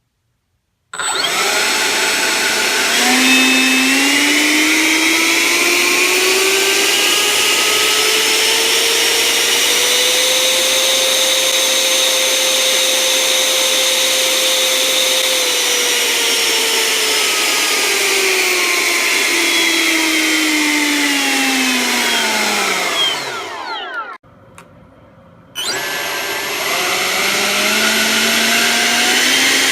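Freewing 80mm electric ducted fan running up: a whine that rises over several seconds, holds steady at full throttle, then falls away as the fan spools down to a stop. After a short pause a second run starts, the whine climbing again near the end.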